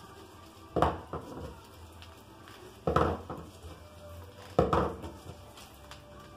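Spruce and thuja branches being worked by hand into a wreath garland: three sharp knocks about two seconds apart, each followed by a short rustle.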